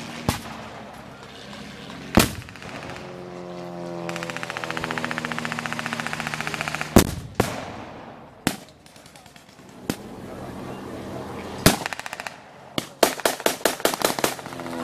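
Blank gunfire and pyrotechnic bangs: sharp single shots scattered through, and a rapid machine-gun burst near the end. In between, a low-flying single-engine propeller plane passes, its engine drone falling in pitch and then holding steady for a few seconds.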